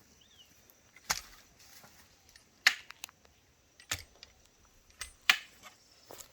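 Hand-tool strikes on wood during pen construction: about seven sharp knocks, irregularly spaced roughly a second apart.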